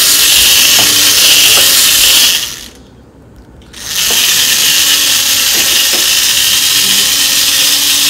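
Small DC gear motors of a hobby robot car running as it drives forward: a loud, high whir. It stops for about a second and a half a little over two seconds in, then starts again.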